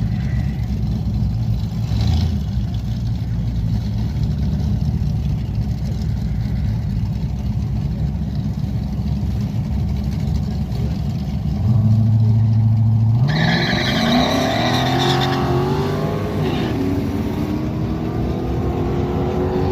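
Drag-racing cars' engines idling low and steady at the starting line, then one is held at a brief high rev and launches hard about 13 seconds in. Its engine pitch climbs as it accelerates down the strip, drops at a gear shift and climbs again.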